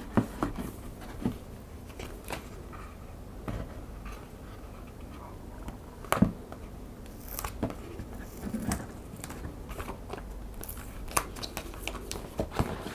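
Hands handling paper and thin card: a folded card folder holding a manual is opened, with light rustling, sliding and scattered small taps and clicks.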